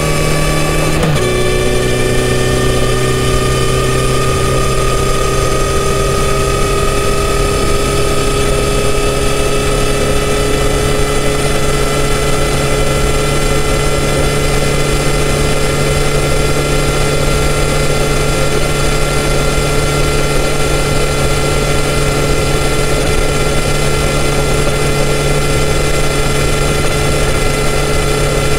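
Kawasaki Z900RS's inline-four on its stock exhaust, heard from the rider's seat at highway speed. About a second in the engine note drops suddenly with an upshift, then climbs slowly and steadily as the bike gains speed, over constant wind and road noise.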